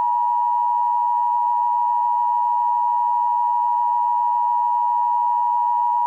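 Emergency Alert System attention signal: a loud, steady two-tone electronic alert (853 and 960 Hz together) held without change. It marks the start of an emergency alert, here a tornado warning.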